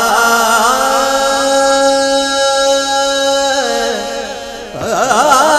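Background music: a slow solo melody with wide vibrato and a long held note in the middle. It breaks off briefly about four and a half seconds in, then resumes.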